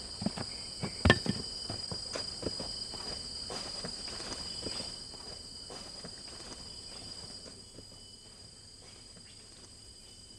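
Footsteps walking away on the ground, thinning out and fading over the first five seconds or so, over a steady high drone of insects.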